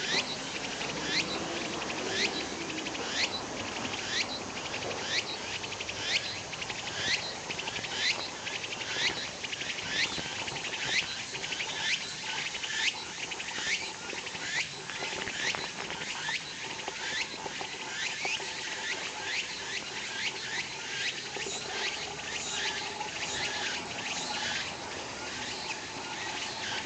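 Tsukutsuku-boshi cicada (Meimuna opalifera) singing: a continuous high buzz with sharp repeated phrases on top, about one a second at first, speeding up to about two a second in the second half.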